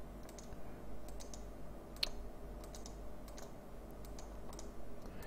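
Faint, irregular clicks of a computer mouse and keyboard, the sharpest about two seconds in, over a low steady room hum.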